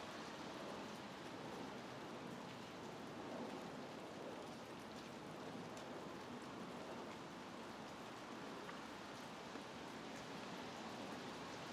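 Steady rain falling on foliage: an even hiss with faint scattered drip ticks.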